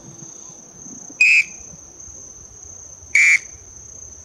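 Wooden tinamou call (pio) blown twice: two short whistled notes about two seconds apart, imitating a tinamou to lure it in. A steady high insect buzz runs underneath.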